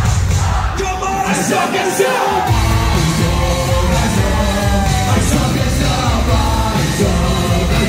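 Live band playing through a PA, with electric guitar, keyboards and a lead singer. The low end drops out about two seconds in and the full band comes back in half a second later.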